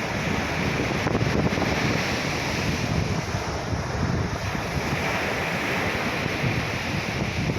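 Waves washing onto a sandy beach, heavily overlaid by wind buffeting the microphone as a low rumble. The surf swells and eases slowly.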